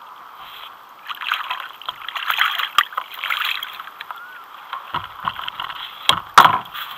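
A sea-fishing reel being wound in, with water sloshing as a fish comes to the surface beside a sit-on-top kayak. This is followed by a few sharp knocks as the fish is swung aboard and handled, the loudest near the end.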